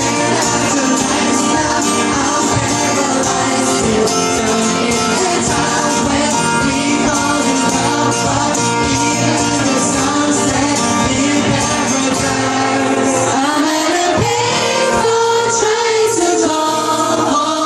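Live pop band performing a song: singing over guitar and band accompaniment, loud and continuous.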